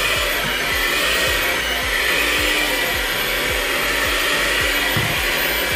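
Black & Decker Performance Helix hand mixer running steadily on speed 3 with its dough hooks kneading a stiff bread dough in a glass bowl. The motor whirs under load with repeated dull low thumps underneath, a few a second, as the hooks work the dough, and the mixer vibrates a lot.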